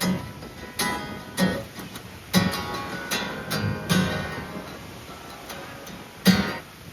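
Acoustic guitar strumming chords, a loose run of separate strums that thins out, with one last strum about six seconds in.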